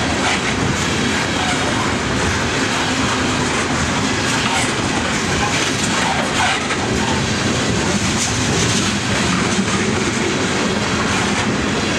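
Freight train's open-top cars rolling past at speed: a steady loud rumble of steel wheels on rail, broken by repeated clicks as the wheels cross rail joints.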